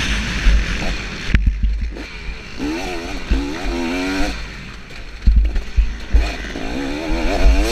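KTM 250SX two-stroke motocross engine revving up and down as the bike is ridden through a corner, heard from a helmet-mounted camera. Heavy wind rush on the microphone for the first second or so, then low thumps between the revs.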